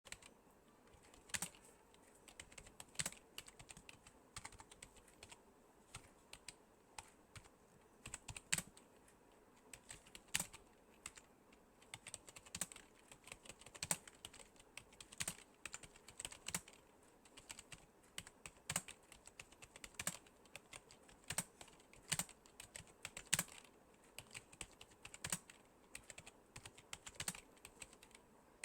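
Fast typing on a smartphone's on-screen keyboard: quick, irregular, fairly faint clicks, several a second, with brief pauses between bursts.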